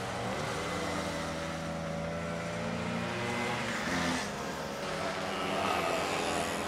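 Vintage largeframe Vespa scooters' two-stroke single-cylinder engines running hard in a race, their pitch rising and falling as they accelerate and pass. The sound swells briefly about four seconds in.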